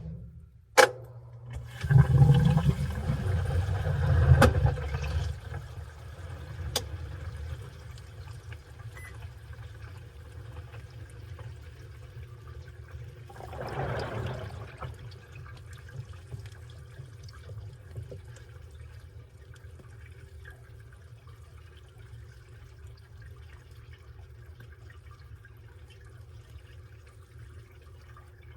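Washing machine running with water: two sharp clicks, then a loud rush of water for a few seconds that settles into a steady low hum with water trickling, and a second brief swell of water about halfway through.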